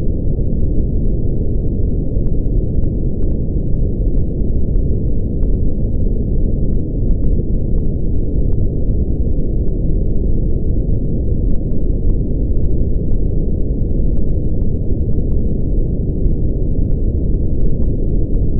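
Brown noise: a steady, deep rumbling hiss, strongest in the bass with almost nothing in the highs, unchanging throughout.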